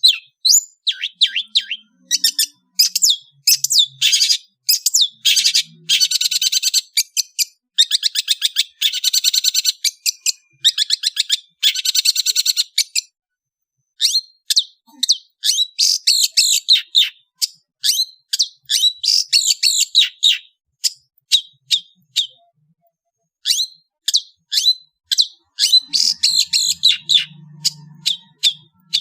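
Long-tailed shrike (cendet) singing a fast, varied song of high chirps and buzzy trills in bursts, with two brief pauses.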